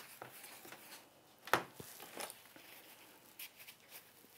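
Faint scraping and wiping as acrylic paint is cleared off a glass palette with a scraper and paper towel, with one sharp tap about a second and a half in.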